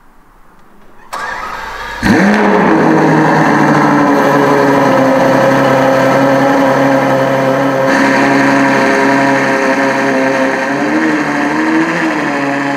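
Novitec-tuned Ferrari 812 Superfast's V12 cold-starting: the starter cranks for about a second, the engine catches at about two seconds with a brief flare of revs, then settles into a loud, steady cold idle.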